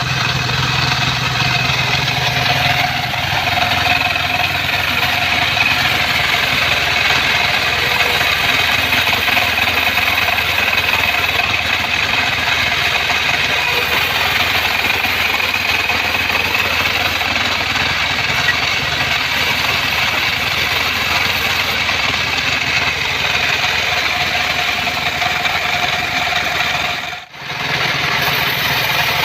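Band sawmill running steadily: its engine drone lies under a high, steady whine. The sound drops out for a moment near the end.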